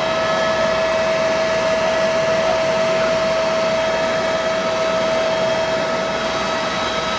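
Eurocopter helicopter in flight, heard from inside the passenger cabin: a steady rushing noise from the engine and rotor with a steady high whine over it.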